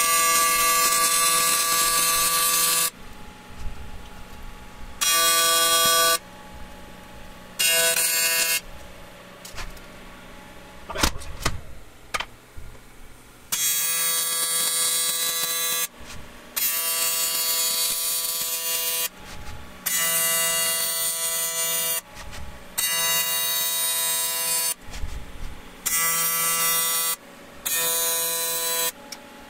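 AC TIG welding arc from a Miller Dynasty 400 welding an aluminium wheel: a steady electric buzz that starts and stops in about nine bursts of one to three seconds each as the welder lays short beads. There is one sharp knock about halfway through.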